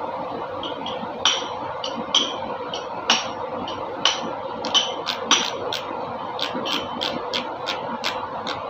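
Metal tools clinking and tapping on engine parts: scattered sharp clinks at first, then a more even run of lighter ticks about three a second, over a steady hum.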